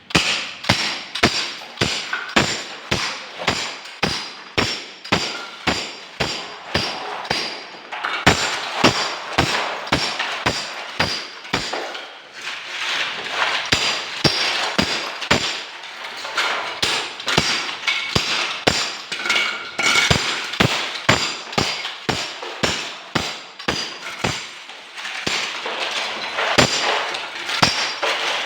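A hammer striking over and over in a steady rhythm of about two to three blows a second, as in knocking or chipping work during a sink repair.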